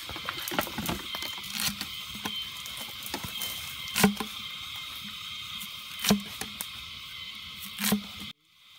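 Chopping with a blade: lighter taps, then three heavy strokes about two seconds apart, over a steady high hiss. The sound cuts off abruptly near the end.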